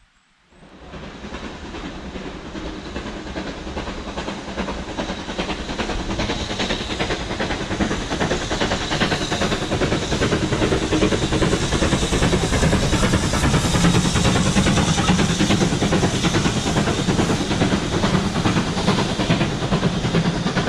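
Steam locomotive hauling a train of coaches past close by, with steam exhaust and hiss over the clatter of wheels on the rails. It grows louder over the first several seconds as it draws nearer.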